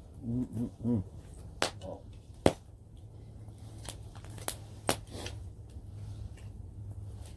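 Open wood fire crackling, with a few sharp pops, the loudest about two and a half seconds in, over a steady low background. A short murmured voice comes in the first second.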